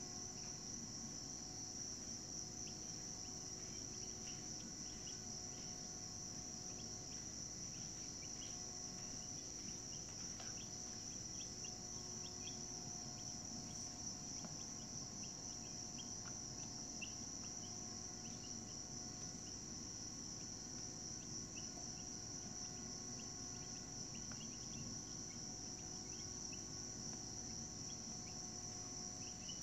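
Insects trilling in a steady, unbroken high-pitched drone, with faint short chirps scattered through it.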